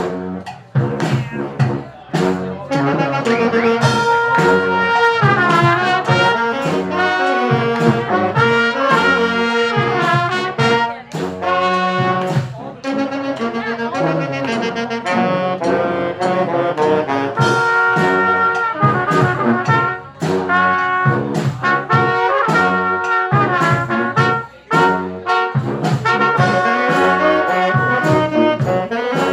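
Brass band playing a lively tune: trumpets and trombones carrying the melody in held and moving notes, over drums keeping a steady beat.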